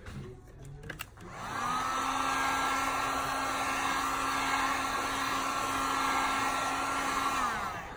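Heat gun switched on, its motor whining up to speed about a second in, blowing steadily, then winding down near the end. It is heating the phone's glued-on screen to soften the adhesive. A few light clicks come just before it starts.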